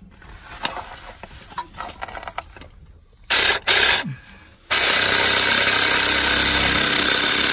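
Cordless reciprocating saw cutting 1.5-inch ABS plastic pipe. After a few seconds of faint handling noise the saw gives two short bursts, then runs steadily through the cut from about halfway on.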